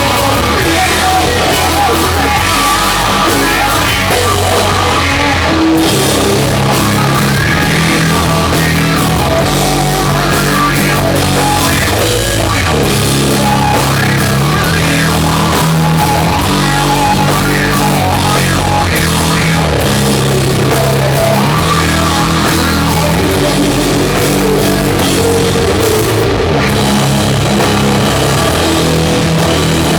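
Doom metal band playing live: a slow, loud riff of long held, heavily distorted low guitar and bass notes over a drum kit.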